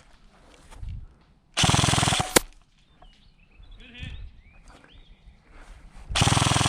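Airsoft gun firing two rapid full-auto bursts, each under a second long. The first comes about one and a half seconds in, the second near the end.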